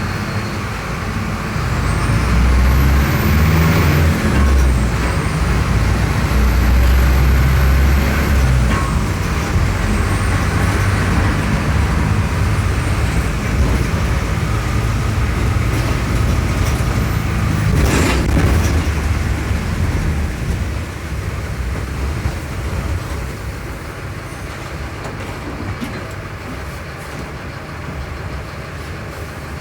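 Mercedes-Benz OF-1418 bus's OM-904LA four-cylinder turbodiesel running under way, loudest in the first several seconds and easing off after about twenty seconds, with one sharp knock about eighteen seconds in.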